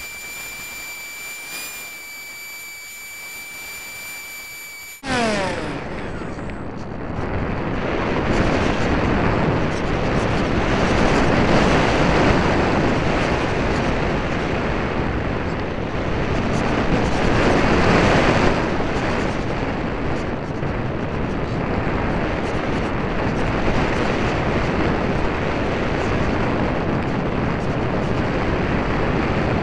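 RC airplane in flight heard through its onboard keychain camera: a steady high-pitched whine, then about five seconds in a sudden switch to a loud rushing noise of air and motor that swells and eases as the plane banks.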